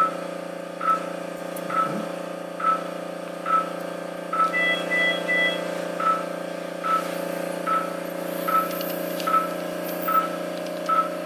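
Operating-room patient monitor sounding its pulse beep, one short tone with each heartbeat, about 70 a minute, over a steady hum. About halfway through, a separate higher chime of three stacked tones sounds for about a second.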